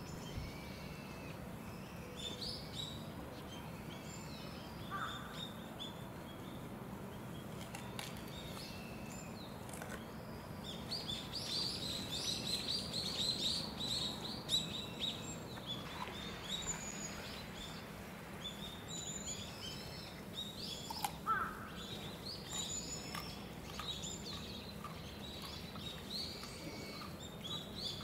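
Small birds chirping and twittering in many short, high calls, thickest about halfway through, over a steady low background hum.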